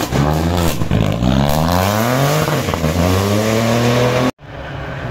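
Peugeot 208 rally car accelerating hard, its engine revving up through the gears with two quick upshifts. The sound cuts off abruptly about four seconds in, followed by a quieter steady low engine drone.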